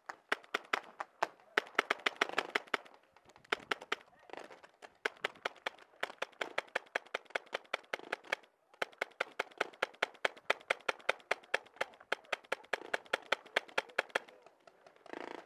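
Tippmann X7 Phenom paintball marker firing rapid strings of shots, about six a second, with short pauses about three and a half and eight and a half seconds in.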